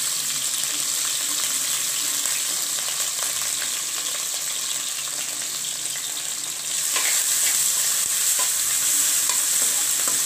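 Green chillies, ginger and garlic sizzling in hot groundnut oil in a kadai while being stirred, with faint ticks of the spoon against the pan. The sizzle grows louder about seven seconds in.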